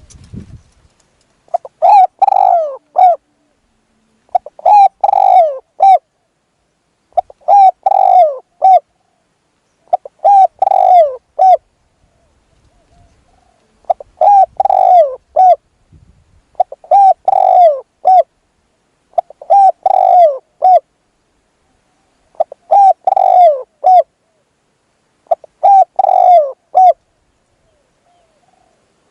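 Spotted dove cooing close by: a loud phrase of several falling coo notes repeated about every three seconds, nine times.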